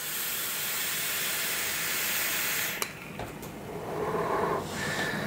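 A long draw on a rebuildable dripping atomizer with honeycomb airflow: a steady hiss of air pulled through the atomizer for nearly three seconds, ending with a click. Then a quieter, breathy exhale of the vapour.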